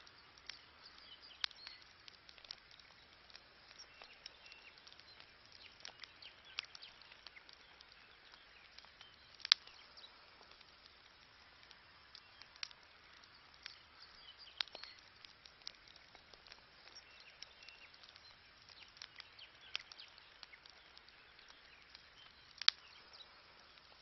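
Wood campfire crackling with irregular small pops and snaps, two much louder pops about nine and a half seconds in and near the end.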